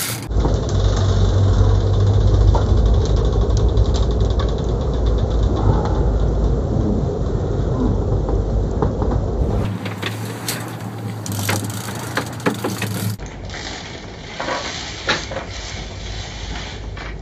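Sportfishing boat's engines running with a heavy low rumble and wind on the microphone, with scattered clicks and knocks from the big-game reel and rod as a hooked fish is reeled in from the fighting chair. The sound changes abruptly twice.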